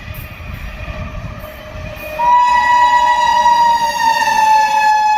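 WAP-7 electric locomotive's horn with train rumble underneath: a fainter horn tone at first, then about two seconds in a loud, long blast starts and holds, its pitch dropping slightly.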